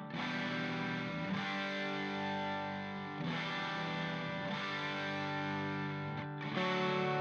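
Background music: sustained electric guitar chords with distortion and effects, changing chord every second or two.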